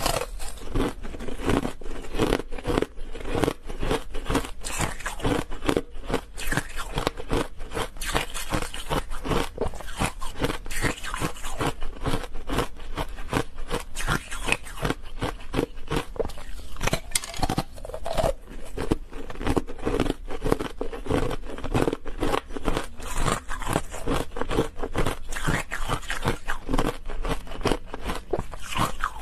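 Ice coated in matcha powder being crunched and chewed in the mouth, a dense, unbroken run of sharp crackling crunches.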